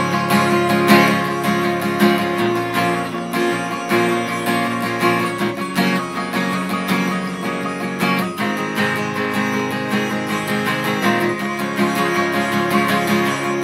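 Acoustic guitar strummed in a steady rhythm together with a plucked sitar.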